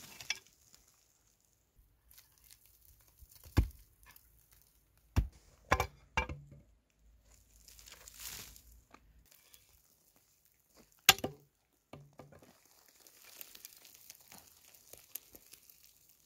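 Several sharp strikes of a pickaxe into a dry earth bank, with dry soil crumbling and trickling down as it is rubbed loose by hand about halfway through, and faint gritty crackling of loose earth near the end.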